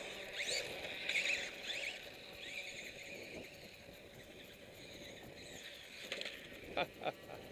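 Remote-control motorcycle's motor whining high in short rising and falling sweeps as the throttle is worked. Two sharp clicks come near the end.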